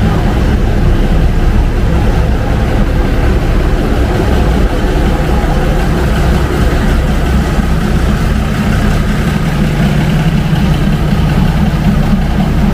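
A large engine idling close by: a steady low running sound that firms up into a deeper hum about three quarters of the way through.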